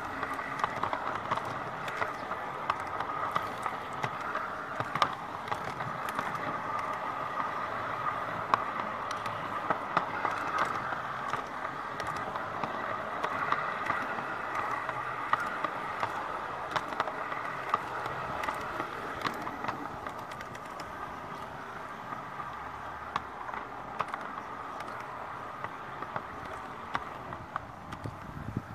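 G-gauge model train running along outdoor garden-railway track: the LGB Stainz locomotive and flatbed wagon roll on metal rails with a steady running noise and many small irregular clicks from the wheels over the track.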